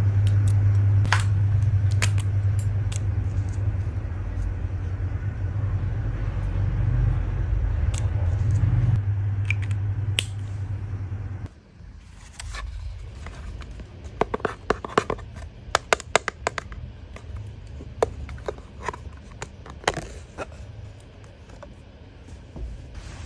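Eyelash extension work close to the microphone. A steady low electric hum with a few sharp clicks stops abruptly about halfway through. After it comes a quieter run of small, sharp clicks and taps from lash tweezers handling the extensions, densest a little past the middle.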